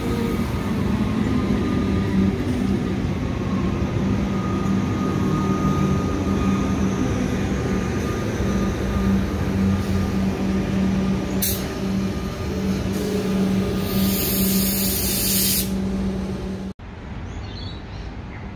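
Comeng electric multiple-unit train moving slowly along the platform, its running gear and traction equipment giving a steady low hum. A single click comes about 11.5 seconds in, and a hiss of air follows near the end. The sound then drops suddenly to a quieter hum.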